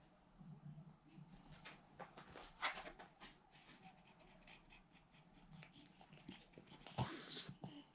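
A French bulldog snoring faintly in its sleep, with uneven, noisy breaths. Two louder breaths stand out, one about two and a half seconds in and a longer one about a second before the end.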